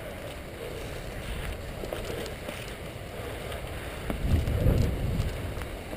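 Wind rumbling on a body-worn GoPro's microphone while the wearer walks through grass and brush, with a stronger gust of rumble about four seconds in.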